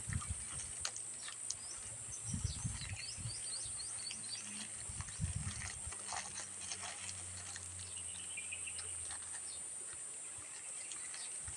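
Close-up eating sounds: soft chewing and food-handling knocks and clicks, in a few clusters. Behind them run a steady high insect drone and a few short bird chirps.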